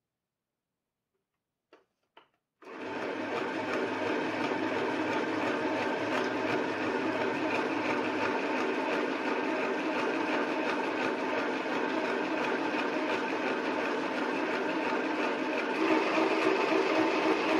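Compact electric sewing machine (FHSM-505B) stitching through fabric: after a couple of faint clicks it starts about two and a half seconds in and runs steadily, a little louder near the end. This is the machine's normal running noise.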